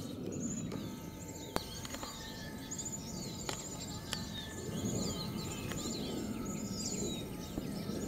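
Many small songbirds chirping and twittering at once, short high notes coming thick and fast, over a low steady background rumble. A single sharp click sounds about a second and a half in.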